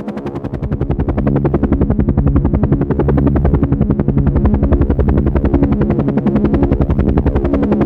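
Helicopter rotor beating in a fast, even pulse over a steady engine tone, dipping slightly in loudness at the start and coming back up about a second in.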